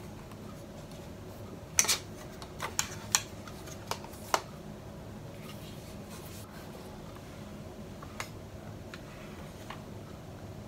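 Zomei tripod being folded and handled: a handful of sharp clicks and knocks over about two seconds, starting a couple of seconds in, then a few fainter clicks, over a steady low hum.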